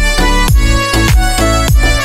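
Background music with a steady dance beat: a kick drum about twice a second under a melodic line.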